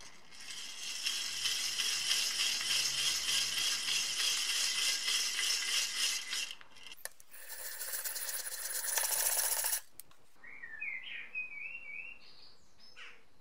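Restored 1940s two-speed enclosed breast drill cranked by hand with the bit spinning freely: its gears whir with a fine rapid ticking, in two runs. The first run lasts about six seconds and the second, louder one about three seconds, ending abruptly. A few high chirps follow near the end.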